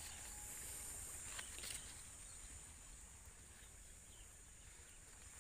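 Faint, steady high-pitched chorus of insects in the cornfield, with a couple of brief rustles of corn leaves early on.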